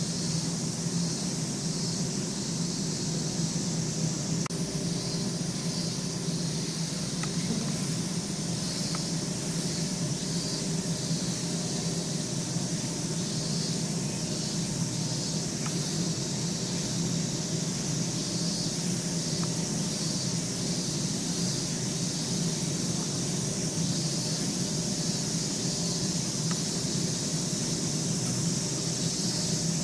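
Steady low hum with an even hiss above it, the background noise of building ventilation machinery.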